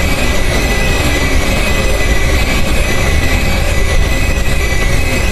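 Harsh noise music: a loud, unbroken wall of noise with a deep rumble underneath and several thin, high screeching tones held steadily over it.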